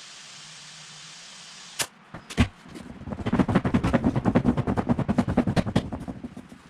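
Impact wrench hammering: a few single clicks, then a rapid, even burst of blows lasting about three seconds, like wheel bolts being run on or tightened. A steady hiss runs underneath at the start.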